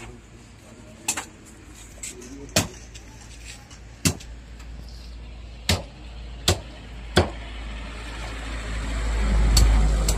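Large machete-style knife striking a carp on a wooden chopping stump: about seven sharp knocks at irregular intervals. A low rumble swells toward the end, peaking near the last knock.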